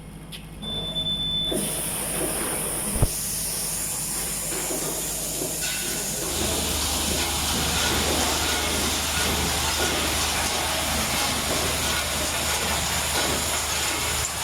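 Automatic spout pouch sealing machine running, with a steady hiss of air and machine noise that starts about a second and a half in. There is a single sharp knock about 3 seconds in, and a low steady hum joins at about 6 seconds.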